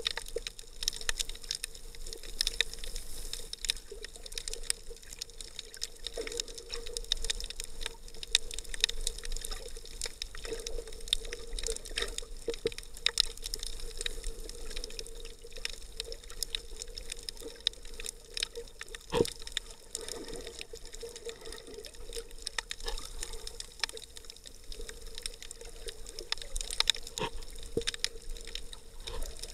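Underwater sound picked up through an action camera's waterproof housing: muffled water noise with frequent sharp clicks and crackles and a faint steady hum.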